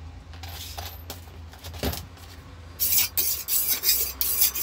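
Kitchen knife being sharpened on a whetstone: a few light scrapes, then from about three seconds in quick, even rasping strokes, about three a second.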